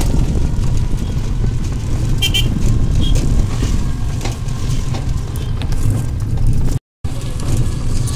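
Ride in a battery e-rickshaw (toto) on a rough lane: a steady low rumble of wind buffeting the phone's microphone and the vehicle rattling over the road. A short high beep comes about two seconds in, and the sound cuts out for a moment near the end.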